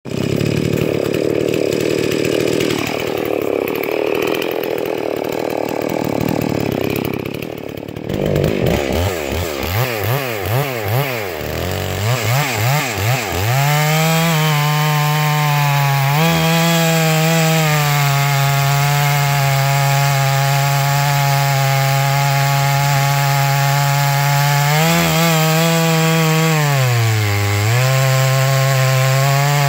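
Two-stroke engine of a Stihl 660-clone chainsaw fitted with a Cross Performance MMWS cylinder, on its first run. After several seconds of rushing noise, the engine pitch surges rapidly up and down, then about 13 seconds in it settles into a steady high-revving run, dipping in pitch briefly twice near the end.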